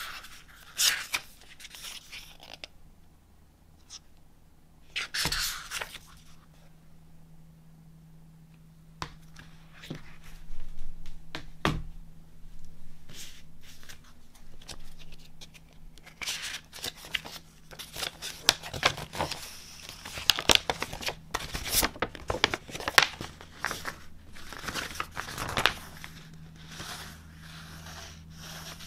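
Paper handling: a few short rustles from the pages of a small book, then a large folded paper poster being unfolded and flattened, with a long stretch of crinkling and rustling in the second half.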